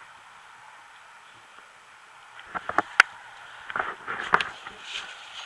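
A few sharp clicks and short rustling noises over a faint steady hiss, starting about halfway through, with one crisp click near the middle.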